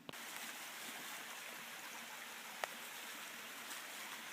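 Steady rush of flowing creek water, with one sharp click about two and a half seconds in.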